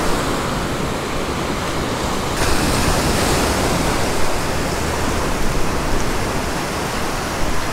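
Steady rush of surf washing up the beach, with a low rumble of wind on the microphone; the hiss grows brighter about two and a half seconds in.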